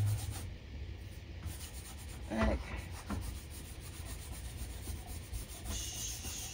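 Bare hand rubbing over a whiteboard, wiping off dry-erase marker writing in place of an eraser, with a brief knock about two and a half seconds in. The rubbing turns hissier near the end.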